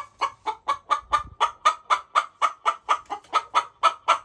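A hen squawking over and over in a fast, even run of short calls, about five or six a second. It is the squawking of a hen upset that another hen has come into the coop while one is on the nest.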